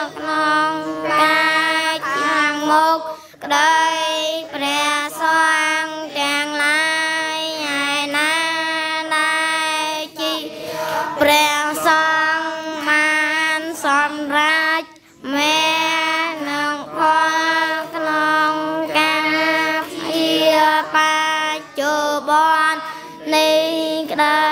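A group of children chanting Buddhist verses together in Khmer, in a melodic sung chant of long held and gliding notes, with a brief break for breath about fifteen seconds in.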